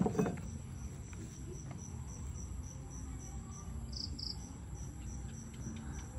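A cricket chirping in an even, steady rhythm over a low background rumble, with a short thump just after the start as the durian husk is handled.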